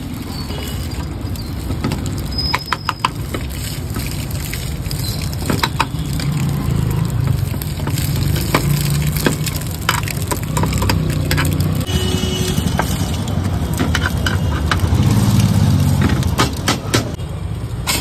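Metal spatula clinking and scraping against a pan as egg keema is cooked, with sharp clicks scattered through, over a steady rumble of street traffic.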